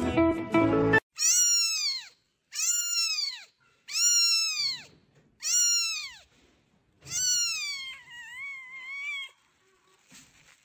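A cat meowing five times, about one call every second and a half, each a loud meow that falls in pitch, then a softer wavering meow. Background music cuts off about a second in.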